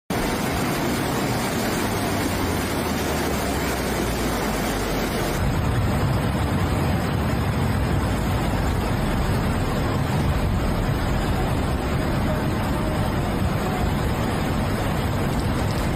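Steady rushing of fast-flowing muddy floodwater, a continuous noise heavy in the low end. About five seconds in it shifts to a slightly louder, deeper rush.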